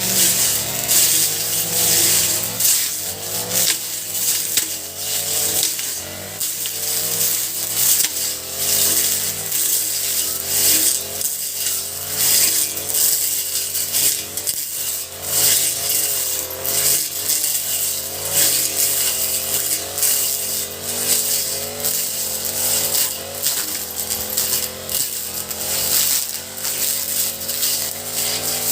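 Honda four-stroke brush cutter running, its engine pitch wavering up and down, with a dense high-pitched hiss and rapid ticking over it.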